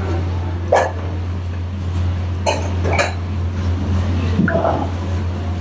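A deep fryer of oil with vegetable turnovers frying: a steady low hum under a faint even hiss, broken by a few short sharp sounds about one, two and a half, three and four and a half seconds in.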